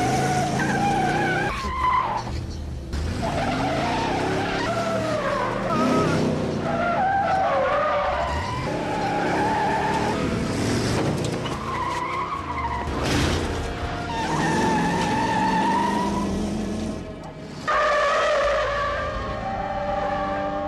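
Car tyres squealing through repeated skids and a burnout, over a revving engine. The sound is edited film chase audio that changes abruptly at the cuts.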